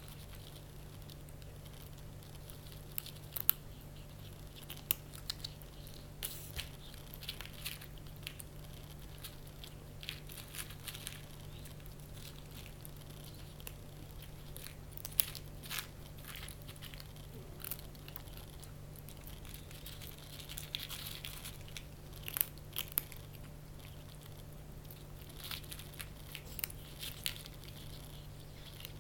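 A kitten crunching and chewing dry cat kibble, eating it greedily, with irregular sharp crunches scattered throughout.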